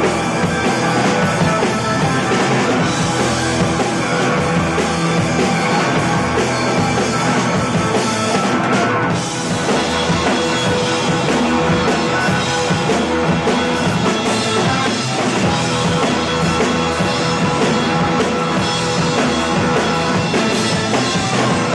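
Loud rock music with a full drum kit, playing without a break apart from a brief dip about nine seconds in.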